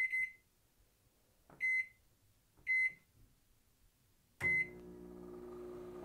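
Sunbeam microwave oven's keypad beeping four times as the cooking time is set to 30 seconds, then the oven starting at the last press and running with a steady electrical hum.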